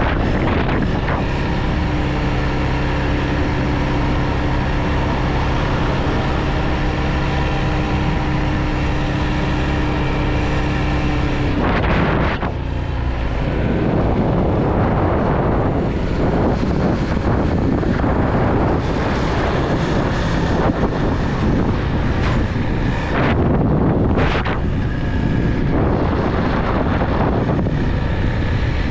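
Motorcycle engine running under way, with wind buffeting the microphone. The engine holds a steady pitch for roughly the first eleven seconds, dips briefly about twelve seconds in, and then runs on with a rougher, changing sound.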